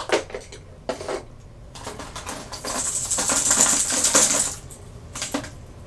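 Hard plastic fishing lures and their hooks clinking and rattling as they are handled: a few separate clicks, then a dense clatter lasting about two and a half seconds.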